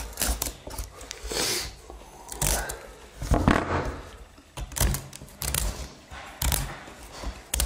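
Pumpkin rind being shaved off with a small handheld peeling blade: repeated, irregular scraping strokes, several a second, as strips of peel come away.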